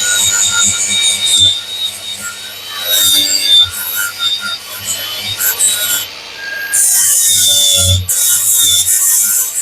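A weld bump on a metal boat fitting being buffed down with abrasive rasping in irregular strokes, with two longer, louder passes near the end. The weld is being taken off so the fitting sits flat and does not wobble.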